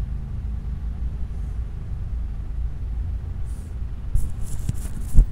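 Steady low background rumble. From about four seconds in, light clicks of hands handling a smartwatch on a cloth surface, ending in one sharper thump near the end.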